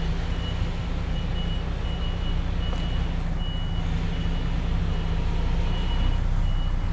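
An articulated lorry's reversing alarm giving evenly spaced high beeps as the truck backs up slowly, over the steady hum of its diesel engine at low revs.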